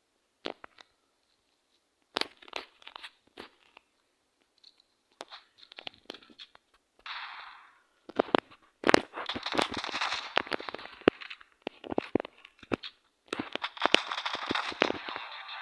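Irregular sharp clicks and bursts of crackling, rustling noise, sparse at first and densest about nine to eleven seconds in and again near the end.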